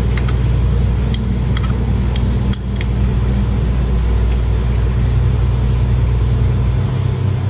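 A steady low droning hum from an unseen motor or machine, with a few light metallic clicks in the first three seconds and one more a little later as a hex key works the bolts of a plastic handlebar center hook.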